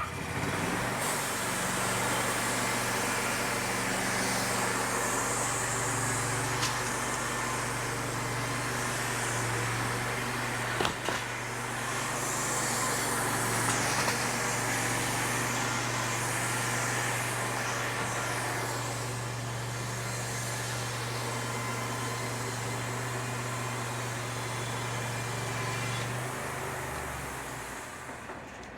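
An engine running steadily at a constant speed with a broad hiss over it, then slowing and dropping away about two seconds before the end.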